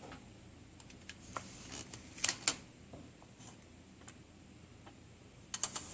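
Light handling noises: scattered soft clicks and rustles, a couple about two seconds in and a quick run near the end, as a strip of reflective metal foil tape is handled and lined up by hand.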